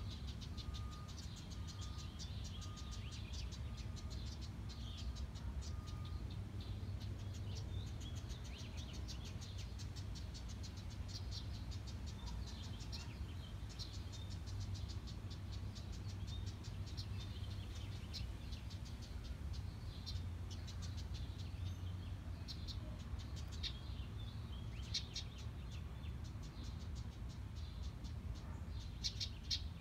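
House wrens' rapid, high ticking chatter in irregular spells, over a steady low rumble. A faint, evenly spaced beeping runs through the first six seconds or so.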